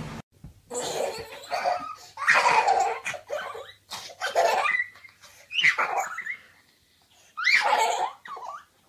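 A young girl laughing hard in several bouts of giggles and belly laughs, with short pauses between them.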